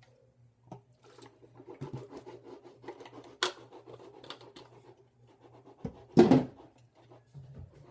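Rinsing the mouth with bubblegum mouthwash: a fluttery, wet swishing for a few seconds, then a loud sudden burst of noise about six seconds in. A low steady hum lies underneath.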